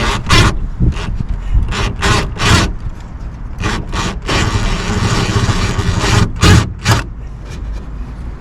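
A series of short, loud scrapes and knocks, about a dozen, with one longer scraping stretch in the middle, as plastic clips and trim are pried and worked loose while a car's rear spoiler is taken off the trunk lid. A low rumble of wind on the microphone runs underneath.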